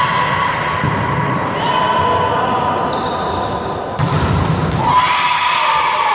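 Volleyball rally in a gymnasium: the ball is hit, with a sharp smack about four seconds in as an attack meets the block at the net. Sustained high squeals and a falling shout carry through, over the hall's echo.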